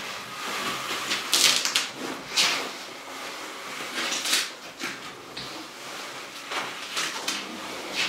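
Plastic stretch film on a wrapped refrigerator crinkling and rustling in a series of short swishes as it is handled and pressed.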